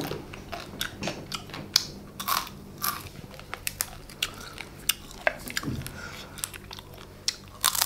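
Crab shell being cracked and pulled apart by hand and eaten: an irregular run of sharp crunches and snaps.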